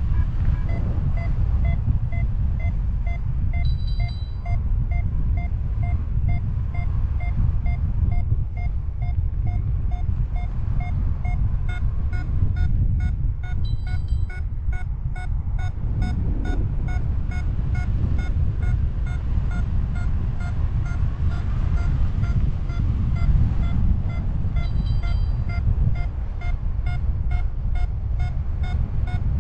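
Wind rushing over the microphone in flight, with a paragliding variometer beeping about twice a second. About twelve seconds in, the beeps turn higher and quicker, the vario's sign of a stronger climb. Short clusters of higher chirps come three times.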